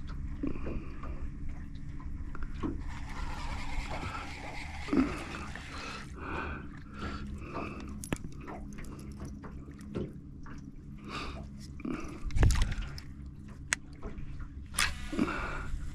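Small clicks, knocks and water sounds of fishing gear being handled in a boat, over a steady low hum, with a louder thump about twelve seconds in.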